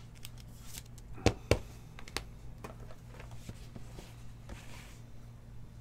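Hands handling a trading card in a rigid plastic holder on a table: two sharp clacks about a quarter second apart, a lighter one shortly after, then small taps and a brief rustle, over a low steady hum.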